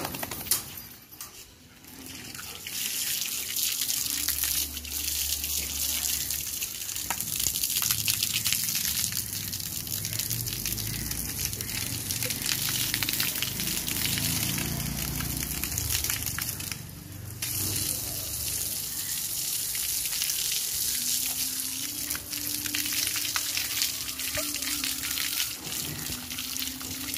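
Garden hose spraying water over a wet dog and splashing onto concrete: a steady hiss that starts a couple of seconds in and breaks off briefly about seventeen seconds in.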